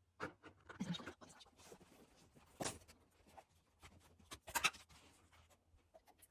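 Scattered scraping and rustling with a few knocks, the loudest a sharp knock about two and a half seconds in and a clatter about four and a half seconds in.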